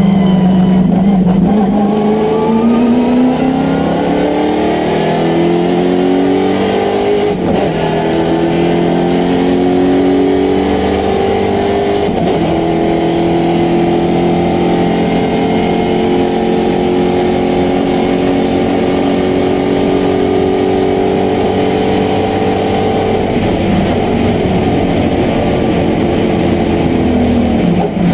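VK Commodore sports sedan's racing engine heard from inside the cabin, pulling hard up through the gears. Its pitch climbs with short breaks for upshifts about 7.5 and 12 seconds in, then holds high and steady at about 220 km/h. Near the end it drops in pitch as the car slows.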